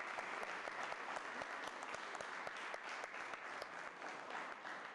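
Audience applauding: a dense, steady patter of many hands clapping, dying away at the very end.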